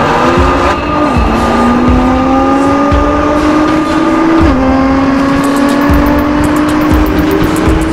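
Car engine under hard acceleration, its pitch climbing steadily and dropping sharply twice, about a second in and again around four and a half seconds, as it shifts up a gear.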